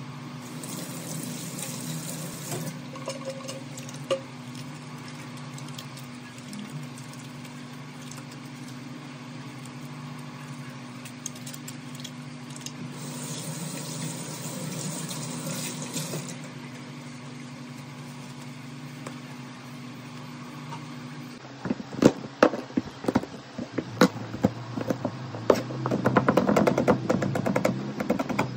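Kitchen faucet running into a stainless steel sink while hands are washed, the water loudest in spells near the start and around the middle. In the last third, a run of sharp knocks and clatters.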